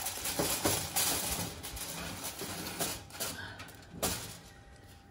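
A foil-covered baking pan being slid onto a wire oven rack: aluminium foil rustling and crinkling against the metal, with a few light knocks and a sharper knock about four seconds in.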